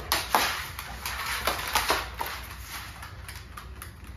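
Dogs' claws clicking and scrabbling irregularly on a hard floor as two dogs scuffle and one runs off, the clicks thinning out near the end.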